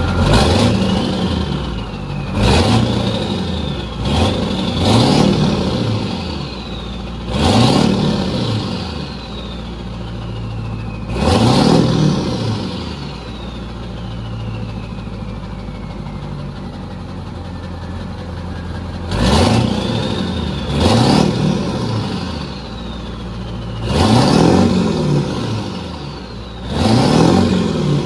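Ford 7.3 Powerstroke turbo-diesel V8 revved in about ten short blips from a smooth idle, each climbing and falling back, heard through its exhaust. A thin whistle falls in pitch as several of the revs die away.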